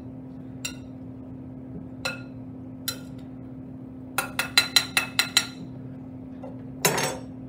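Metal spoon clinking against a glass mixing bowl while stirring salsa: a few single clinks, then a quick run of about seven clinks past the middle, and a louder, rougher knock near the end. A steady low hum runs underneath.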